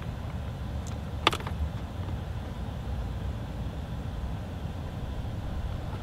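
A click about a second in as a stripped wire is handled into a blue plastic crimp-on butt connector, over a steady low background rumble.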